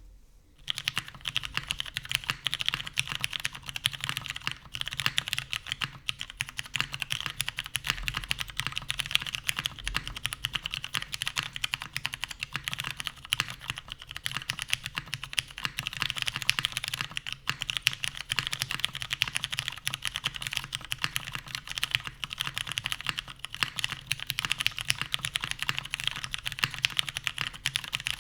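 Fast, continuous typing on a custom mechanical keyboard with lubed, filmed Cherry MX Ergo Clear tactile switches, a full aluminium plate in a top-mount case and OG Cherry doubleshot keycaps. It is a dense, even stream of keystroke clacks that starts about half a second in.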